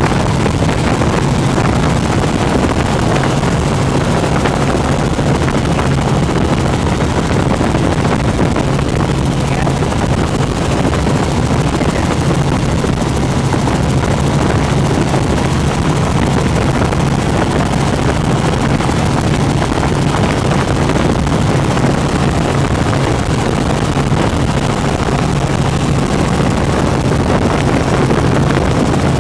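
Helicopter engine and rotor noise heard from inside the cockpit in steady low flight: a loud, even drone with a constant low hum.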